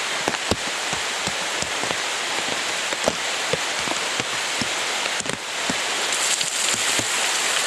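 A steady hiss scattered with small dripping ticks. About six seconds in, a bucket of ice water is dumped over a man's head and splashes down over him and onto the ground with a louder, brighter hiss.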